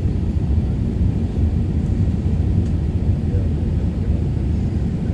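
Steady low rumble of an Airbus A380's engines and airflow as heard inside the passenger cabin.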